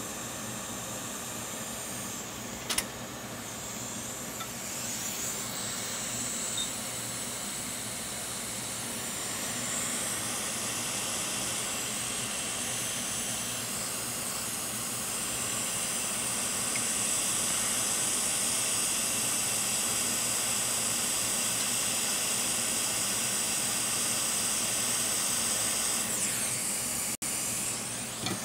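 Hot air rework station blowing a steady hiss onto a circuit board to reflow the solder under a replacement chip. The hiss gets louder about ten seconds in and again a few seconds later, then eases off near the end.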